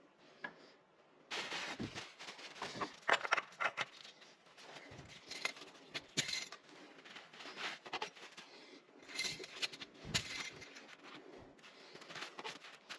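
Irregular handling noises: clicks, knocks and scrapes of something being worked on by hand, starting about a second in and going on in uneven bursts.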